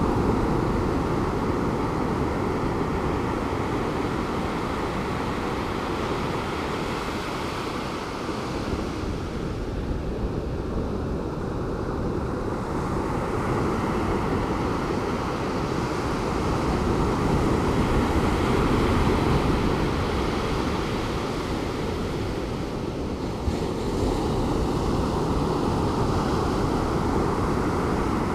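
Pacific Ocean surf breaking gently on a beach, heard from a short way up the shore as a continuous wash that swells and eases slowly, fullest past the middle. Some wind rumble on the microphone.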